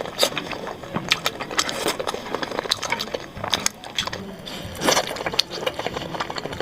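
Close-miked eating: irregular crisp crackles and clicks of food being chewed and crunched in the mouth.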